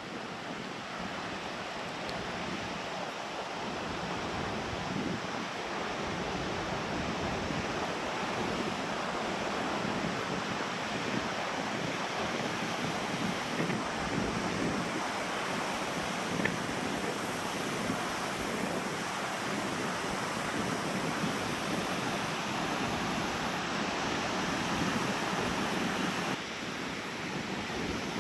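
Lake waves washing onto a sandy beach, a steady rush of surf, with loud wind buffeting the microphone.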